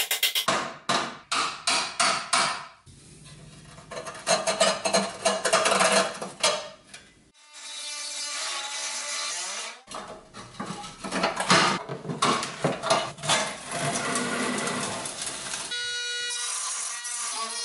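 A ball-peen hammer strikes the rusted pressed-steel toy frame in a quick run of metallic blows. Then a hand-held rotary tool runs against the steel at the rivet joints, its pitch shifting as it bites, and it settles into a steady whine near the end.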